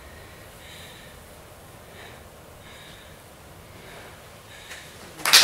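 A few faint breaths of a person breathing hard, about a second apart, in a quiet hall. Audience applause breaks out suddenly near the end.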